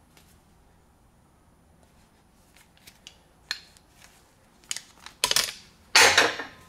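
Metal hand tube benders handled against aluminum tubing and an aluminum work plate: a few light clicks, then two louder spells of metal clattering near the end as the tools are moved and set down.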